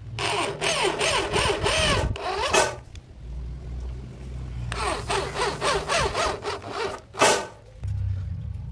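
Electric drill driving self-drilling screws into a sheet panel, its motor whine rising and falling under load. One screw goes in over the first two seconds and a second from about five to seven seconds in, with a short sharp noise just after.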